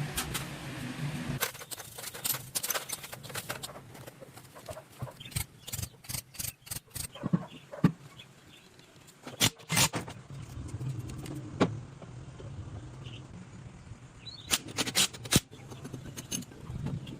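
Irregular sharp clicks and knocks, some in quick clusters, over a low hum.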